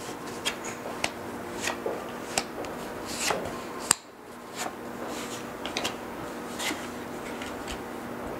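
Tarot cards being turned face up one by one on a cloth-covered table: a string of soft flicks and taps of card stock, the sharpest about four seconds in, over a faint steady hum.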